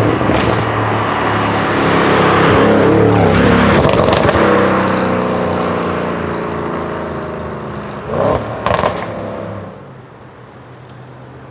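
Audi RS6 Avant C7's twin-turbo V8, fitted with a Milltek exhaust, accelerating hard past the listener. Its loud engine note peaks a few seconds in, then drops in pitch and fades away as the car pulls off. Two short, sharp bangs come about eight seconds in.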